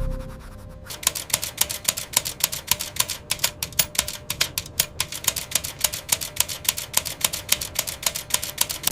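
Telegraph key clicking out Morse code: a rapid, uneven run of sharp clicks that starts about a second in, with short pauses between groups.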